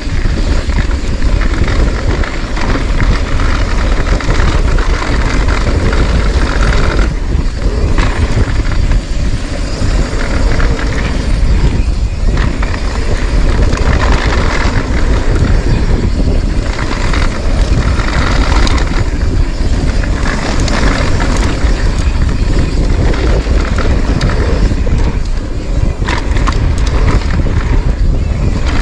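Wind buffeting the microphone of an action camera on a mountain bike riding fast down a dirt trail, over the steady rush of knobby tyres on loose dirt, with many small clicks and rattles from the bike.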